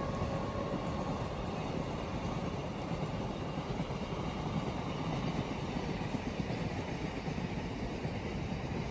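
Container freight train behind a WAG-12 electric locomotive rolling past: a steady noise of wagon wheels on the rails.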